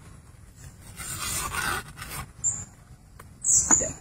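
Rustling and scraping of banana leaves being cut off and stuffed into a woven plastic sack, with a louder rustle about three and a half seconds in.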